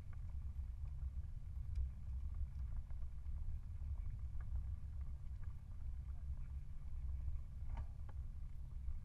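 Wind buffeting the microphone of a camera on a moving bicycle, as an unsteady low rumble, mixed with tyres rolling on a paved lane; a few faint clicks sound above it.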